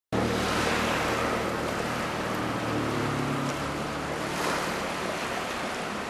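Small waves washing against the shore and rocks of a calm bay, in gentle swells. A faint low mechanical hum sits underneath, plainest in the first half.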